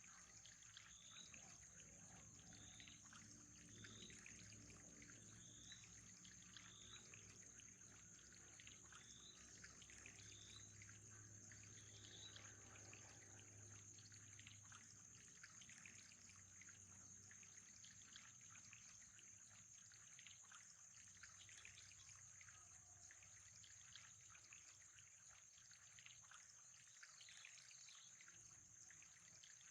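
Faint trickling water with a steady high-pitched whine. Short chirps repeat about once a second through the first half, then stop.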